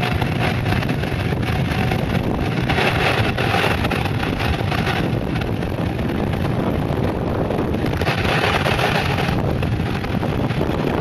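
Mountainboard tyres rolling fast on asphalt, a steady noise mixed with wind buffeting the microphone.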